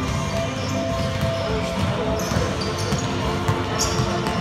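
Basketball game sounds in a large sports hall: the ball bouncing on the court floor as it is dribbled, with short sneaker squeaks and the echo of the hall.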